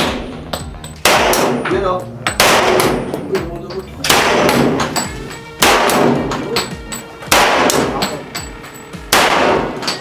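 Handgun fired in slow single shots, six sharp cracks about one and a half seconds apart, each trailing off in a long echo under the range's roofed shooting bay.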